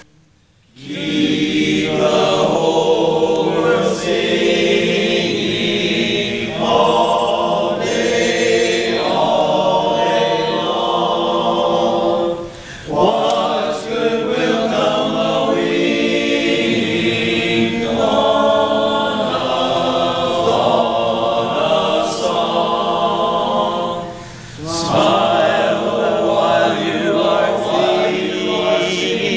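A small group of men singing together in sustained phrases, with brief pauses between phrases about 12 and 24 seconds in.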